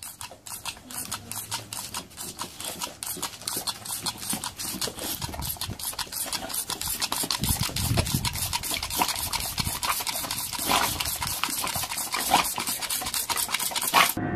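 A boxer dog snapping at a jet of water from a squirt toy, over a fast, regular clicking of about seven clicks a second. A few louder snaps or sounds from the dog come in the second half, and the sound cuts off just before the end.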